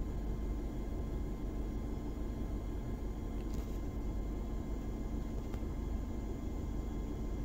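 Steady low outdoor rumble and hiss with no distinct events.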